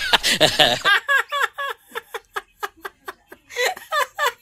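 A man laughing heartily in short repeated bursts, louder near the end.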